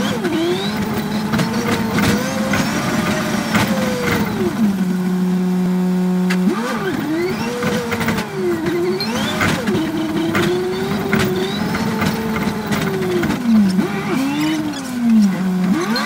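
Yutong ZK6831HGA city bus engine heard from the driver's seat, its revs climbing and dropping again several times as the bus drives, with a brief steady idle about five seconds in. Light clicks and rattles from the cab run through it.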